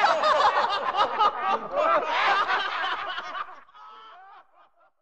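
A person laughing, the laughter dropping much fainter about three and a half seconds in and then stopping.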